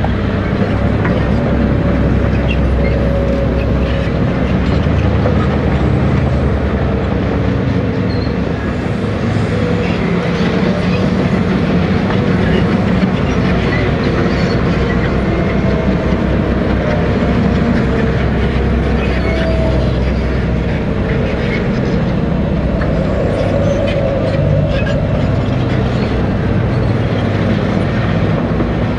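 Caterpillar D6R LGP bulldozer pushing earth with its blade, its diesel engine running steadily under load over the clanking of its steel tracks.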